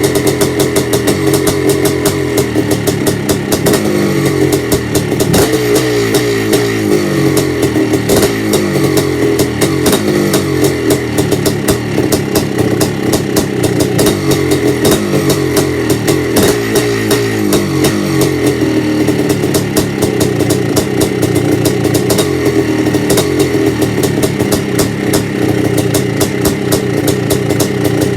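Yamaha IT490 two-stroke single-cylinder dirt bike engine running on a cold start after months unused, just beginning to warm up. Through the middle the throttle is blipped again and again, the pitch rising and falling, and near the end it runs steadily.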